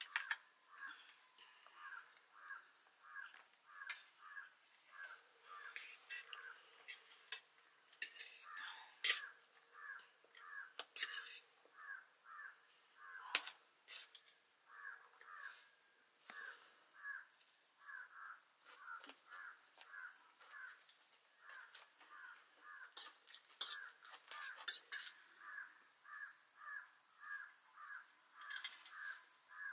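An animal call, a short chirp repeated steadily about twice a second with a few short breaks. Now and then metal cutlery clinks sharply against steel plates, the loudest sounds.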